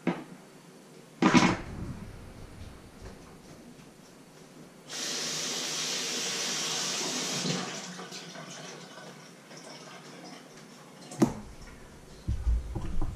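Kitchen tap running steadily for about three seconds in the middle, then shut off. A sharp knock about a second in, and more knocks and thumps near the end, come from handling things in the kitchen.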